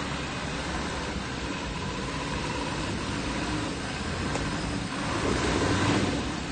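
Off-road 4x4's engine running at low speed as the vehicle crawls up a muddy forest track, growing louder about five seconds in.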